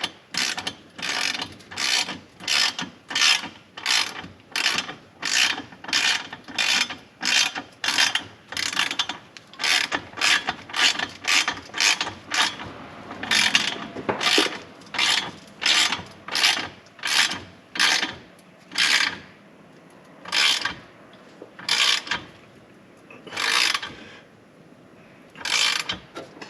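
Hand ratchet wrench working back and forth to tighten exhaust fasteners, a rasping click-run on each stroke. About two strokes a second at first, then slower strokes with pauses near the end.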